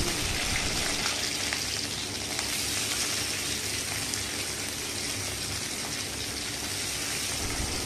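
Cauliflower florets and cut green beans frying in hot oil in an iron karai: a steady sizzle.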